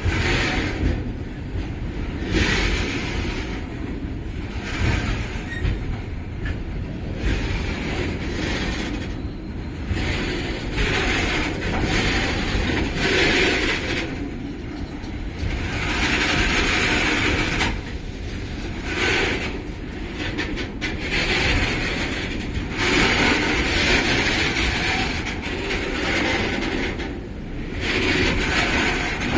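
Long freight train of tank wagons rolling slowly past, with a steady noise of wheels on the rails that swells and fades every few seconds.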